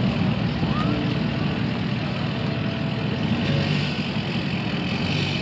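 Street traffic: vehicle engines running steadily with a low rumble, fading a little near the end.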